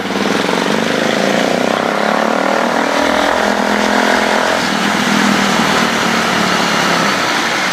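Motorcycle engine running steadily while the bike rides slowly along a narrow lane, heard from the rider's seat; a deeper rumble comes in about three seconds in.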